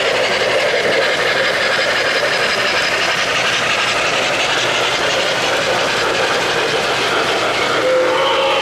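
An O-gauge model Norfolk & Western J-class steam locomotive and its passenger cars roll past on three-rail track, with a steady clatter and rumble of wheels on rails. Near the end a steam whistle starts sounding, a steady held note.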